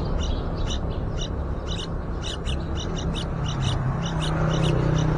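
Yellow-vented bulbul nestlings calling: short high chirps repeated about three to four times a second, over a steady low rumble.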